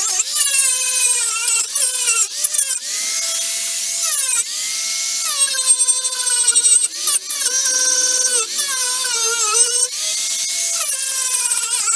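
Power tool spinning a wire brush against the car's body panel, stripping paint to bare metal for stud welding. The motor's whine drops in pitch as it is pressed in and picks back up when eased off, over a steady high scraping hiss.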